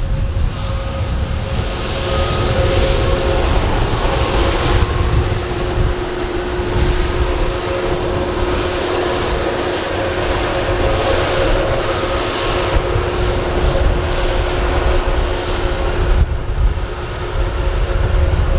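Airbus A320 jet engines running with a steady whine over a deep rumble.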